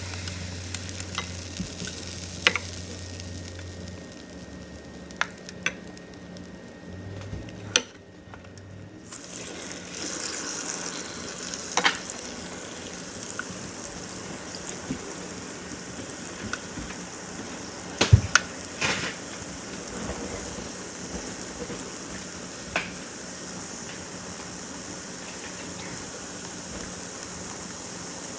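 Waffle batter sizzling on the hot plates of a waffle cone maker: a steady hiss that swells about a third of the way in and holds, with a few sharp clicks and knocks, the loudest a little past halfway.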